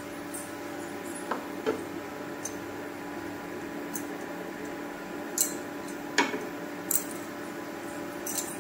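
Steady hum of an induction cooktop heating a nonstick frying pan, with a few short knocks and scrapes of a wooden spatula stirring the cooking onions and tomatoes.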